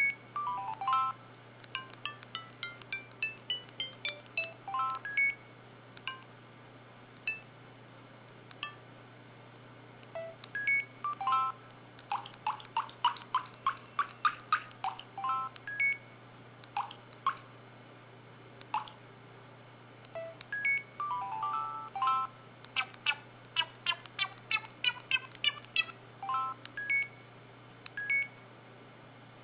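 A mobile phone's built-in sound effects played one after another: short electronic beeps and chimes, quick rising and falling runs of notes, and fast trains of short ticks, with brief gaps between them. A steady low hum runs underneath.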